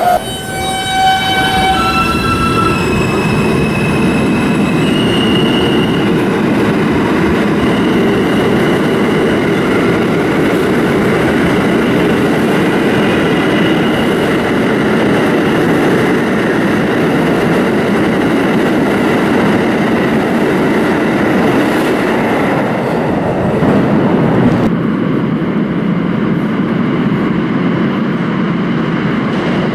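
Freight train rolling past close by: a steady rumble and clatter of wheels on rail, with thin squealing tones above it. The last of a train horn chord fades out in the first couple of seconds.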